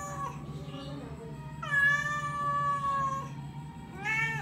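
Domestic cats meowing: the end of one meow at the start, a long drawn-out meow about one and a half seconds in that falls slightly in pitch, and a short rising meow near the end. A steady low hum runs underneath.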